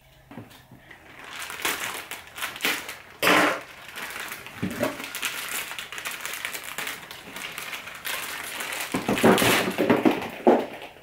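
Clear plastic bag of foam balls crinkling and rustling as it is handled and opened, with louder rustles about three seconds in and again near the end.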